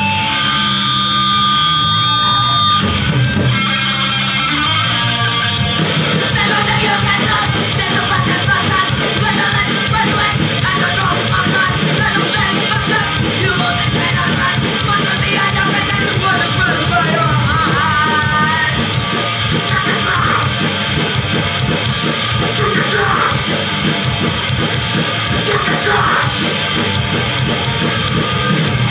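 Punk band playing live: distorted electric guitars, bass and drums, loud and steady, with yelled vocals. It opens on held notes, and the full band fills in after a few seconds.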